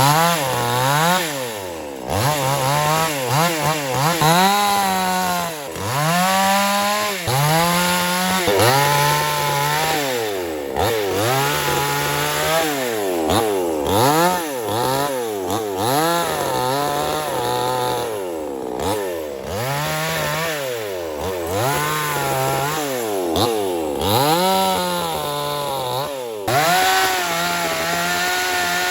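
Chainsaw cutting through logs, its engine note dropping as the chain loads up in the wood and climbing back again every second or two.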